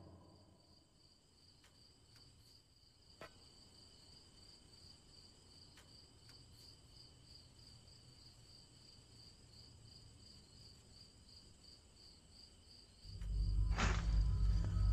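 Crickets chirping in a steady, even pulse over faint background ambience, with a single soft click about three seconds in. Near the end a loud low rumble sets in, with a sharp hit about a second later.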